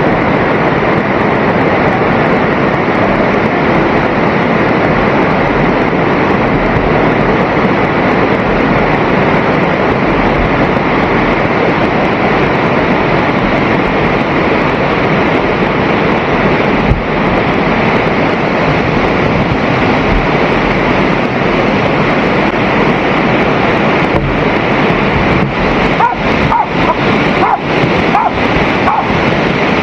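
Waterfall roaring close up, a loud steady rush of falling water, with a few short knocks near the end.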